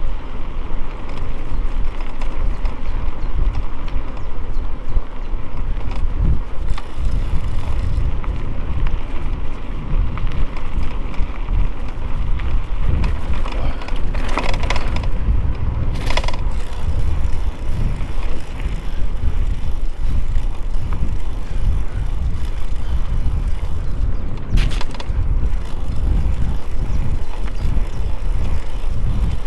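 Mountain bike riding over a trail: wind buffeting the microphone over the rolling rumble of the tyres and the bike rattling. Brief sharper rattles or clicks come a little past halfway and again near the three-quarter mark.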